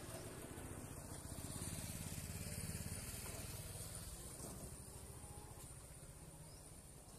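Small motorcycle engine passing close by. It grows louder over the first two to three seconds, then fades away. A steady high insect buzz runs underneath.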